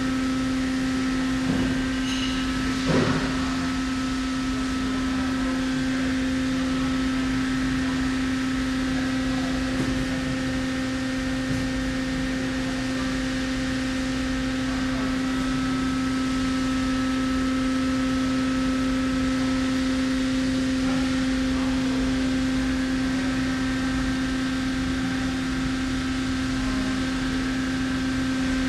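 Steady hum of an idling, powered-up CNC lathe with its spindle stopped: one strong low tone with fainter higher tones over it. A single brief knock sounds about three seconds in.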